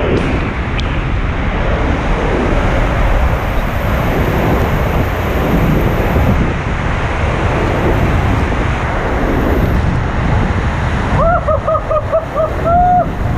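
Loud, steady rushing roar of a waterfall, with wind buffeting the microphone. Near the end there is a quick run of about half a dozen short high-pitched notes.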